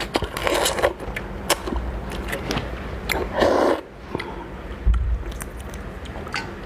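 Close-miked eating sounds of someone eating raw lobster: many short wet clicks and smacks of chewing, with two longer rushing noises about half a second and three and a half seconds in.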